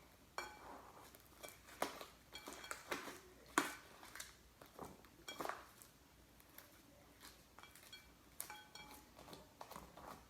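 Scattered soft knocks and small clicks of freshly activated slime being kneaded by hand in a bowl, some with a faint clink.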